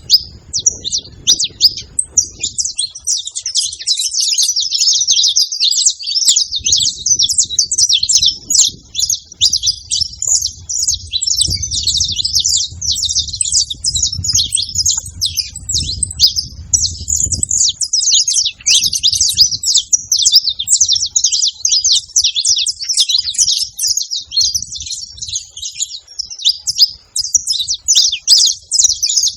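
Saffron finches calling and singing in a dense, unbroken stream of rapid, high chirps.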